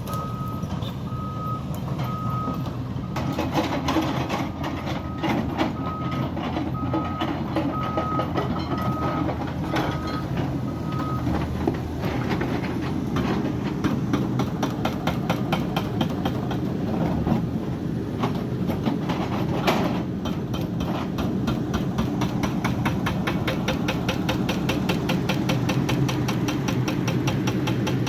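JCB backhoe loader's diesel engine working steadily, with its reversing alarm beeping about one and a half times a second until about 11 seconds in. After that the engine runs on with a rapid, even clatter and an occasional knock.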